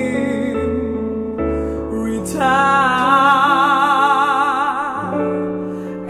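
Slow, sad-sounding song: a woman's voice holds a long note with wide vibrato starting a little over two seconds in, over a soft accompaniment with a low bass line stepping between held notes.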